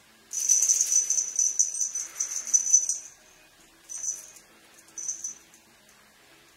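Small jingling rattle shaken rapidly for about three seconds, then two short shakes about a second apart.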